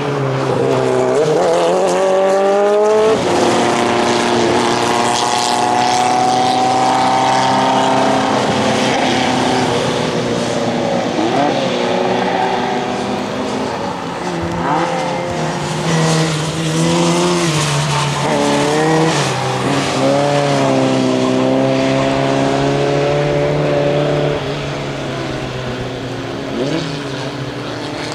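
Racing car engines running at high revs as cars pass one after another, the pitch climbing through the gears, breaking at the gear changes and falling on the lift-offs. The sound fades near the end.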